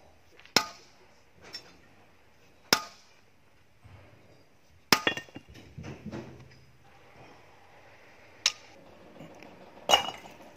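Hand hammer striking rock in slow, irregular blows, about six sharp clinks each with a short ring, as stone is broken by hand. A scatter of smaller knocks follows the middle blow.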